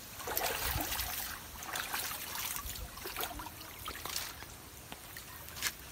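Water splashing and trickling as a wet cast net is hauled up out of shallow water, with irregular splashes throughout and a sharp click near the end.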